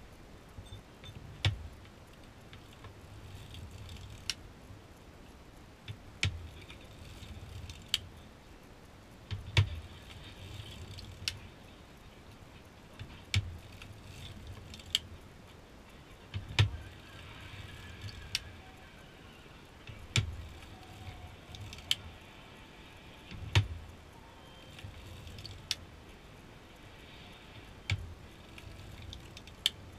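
Hand-cranked NZAK circular sock knitting machine with a compound cylinder knitting 3x1 ribbing: the cylinder's steel needles and cams clatter and rattle as the crank turns. A sharp click comes about every three to four seconds, with lighter clicks between, over a low mechanical rumble.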